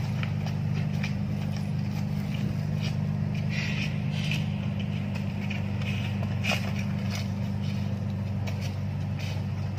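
A steady low machine hum, like an idling engine, runs throughout, with scattered short scuffs and clicks from shoes moving on paving. One sharper click about two-thirds of the way through is the loudest.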